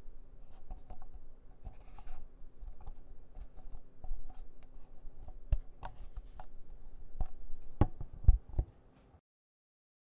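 Handling noise from a hand gripping a Sony PCM-D100 recorder, as picked up by the recorder itself: fingers rubbing and shifting on its body, with a low rumble and scattered sharp clicks and knocks, the loudest near the end. It cuts off suddenly about nine seconds in.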